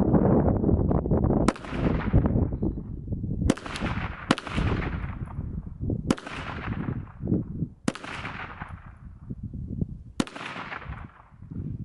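KelTec PMR-30 .22 Magnum pistol firing six single shots, about one to two seconds apart at uneven intervals, each crack trailing off in an echo. A low rumbling noise fills the first second and a half.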